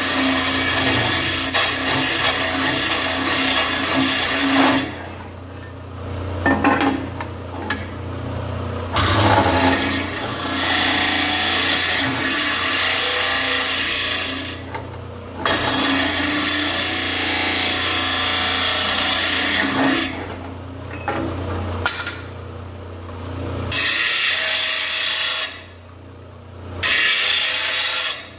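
Stationary disc sander grinding the edge of a steel plate: a loud abrasive hiss in long passes that break off briefly every few seconds, over the steady hum of the sander's electric motor.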